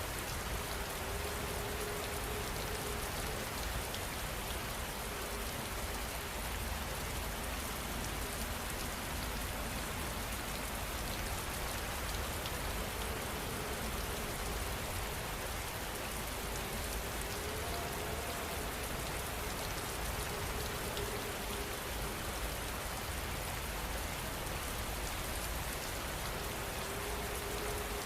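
Heavy rain falling steadily, an even hiss of drops on surfaces over a low rumble, with no breaks or changes.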